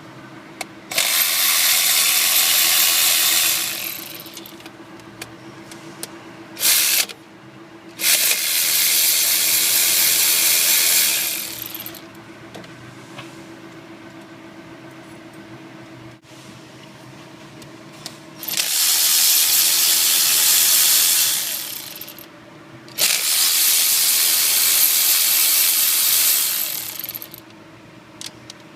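Power ratchet running in four bursts of about three seconds each, with a short blip between the first two, as bolts are backed out of the 6.0 Powerstroke's back cover. A steady low hum continues underneath throughout.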